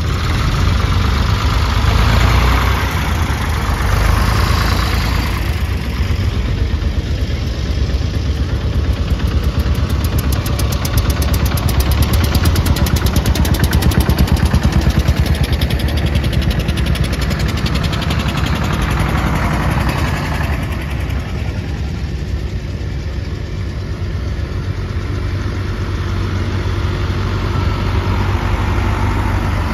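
Vintage tractor engines running as tractors drive past one after another. Around the middle one passes close by, and its engine gives a fast, even firing beat.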